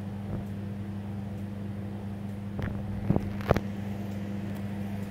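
Steady low electrical hum, like a running fan or appliance motor, with three short soft clicks between about two and a half and three and a half seconds in.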